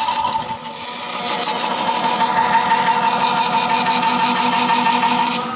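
Small belt-driven milling machine running steadily, its electric motor and spindle giving a constant hum with a steady higher tone; the level falls somewhat near the end.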